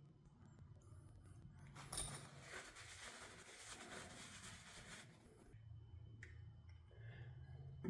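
Hands handling the chain and bar of a small battery pruning saw during reassembly. A click about two seconds in is followed by about three seconds of faint scraping and rustling, with a sharper click near the end, over a low steady hum.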